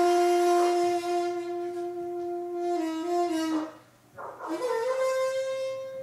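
Daegeum, the large Korean bamboo transverse flute, holding a long note that sags slightly in pitch about three seconds in. After a brief break, a higher note slides in and is held.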